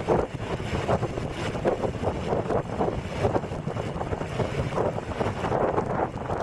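Wind buffeting the built-in microphone of a Nikon S8100 compact camera as it moves along a road, an uneven noise that surges up and down.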